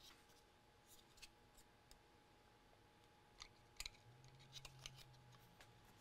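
Near silence with a few faint, short clicks and taps of a small circuit board and cable being handled, the clearest a little before four seconds in.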